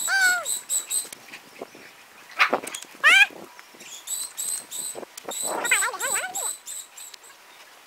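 Dogs play-fighting, giving short high-pitched yelps and whines, several rising in pitch, in brief clusters near the start, around three seconds in and around six seconds in.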